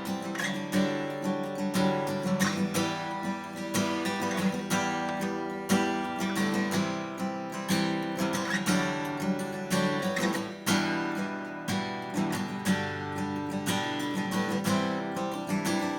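Martin CEO-7 acoustic guitar being strummed, playing chords with a steady run of strokes.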